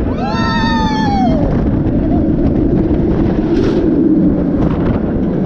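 Wind rushing loudly over the microphone on a moving roller coaster. A rider screams once near the start, a wail that rises and then falls away over about a second and a half.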